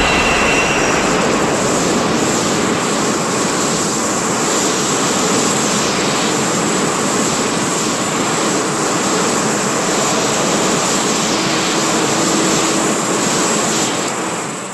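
Shin Godzilla sound effect: a long, loud, steady rushing noise across the whole range, with no rhythm, fading out near the end.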